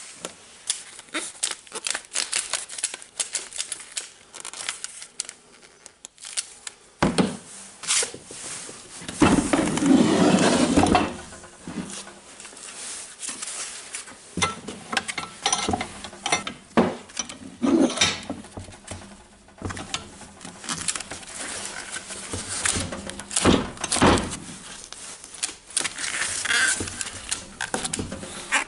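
Handling noise of a cordless drill with a steel step bit being moved about and clamped in a cast-iron bench vise: scattered metal clicks, knocks and clanks, with a louder rubbing, rattling stretch of about two seconds around nine seconds in.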